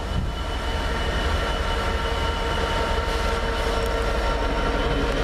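British Rail Class 66 diesel-electric locomotive 66141 hauling a freight train of open box wagons toward the listener. Its two-stroke V12 diesel engine runs under load as a deep rumble with a steady whine over it, growing slightly louder as the locomotive nears.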